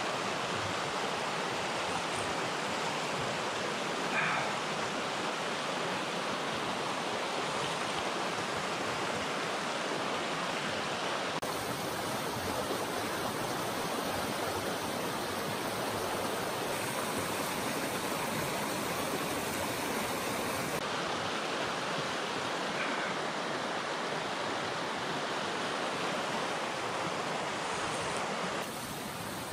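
A small mountain stream rushing over rocks and little rapids: a steady wash of running water.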